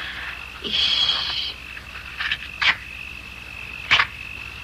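Night-time insect chorus: a steady high-pitched trill, with a louder buzzing call about a second in. Two sharp clicks come in the second half, the later one the loudest.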